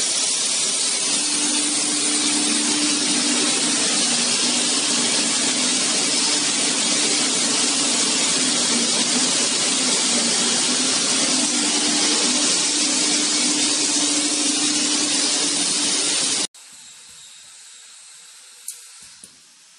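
Tyre buffing machine grinding the worn tread off a giant OTR tyre: a loud, steady rasping noise over a low steady tone. It cuts off abruptly about three-quarters of the way in, leaving a much quieter hiss with a couple of faint clicks.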